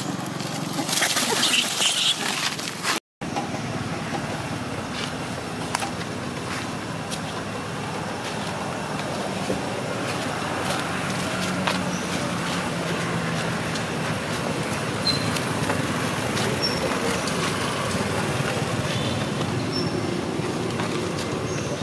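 Steady outdoor background noise, with a louder hissing stretch in the first three seconds that cuts out abruptly, and a faint low hum for a few seconds near the middle.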